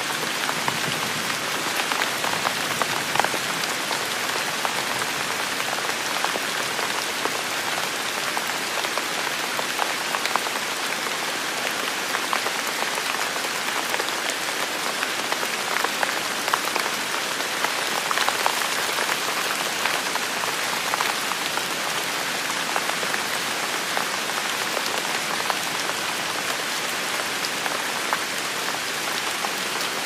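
Steady rain falling, with many single drops ticking through the even hiss.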